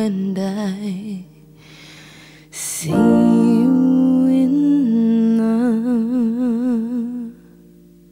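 Female vocalist singing a wordless, humming-like ad-lib with wavering vibrato over sustained piano chords. There is a short breath about three seconds in before a long held phrase. The voice stops near the end, leaving the piano chord ringing.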